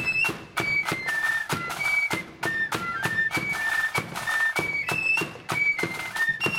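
Marching flute band playing a tune in the blood-and-thunder style. Flutes carry a high melody over a steady march beat from side drums and a bass drum.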